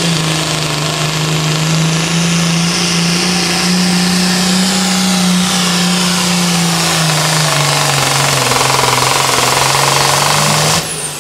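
Turbocharged International Harvester Super Farm pulling tractor's diesel engine running flat out under load, its pitch slowly falling as the sled loads it down. The engine sound drops off sharply just before the end as the throttle comes off.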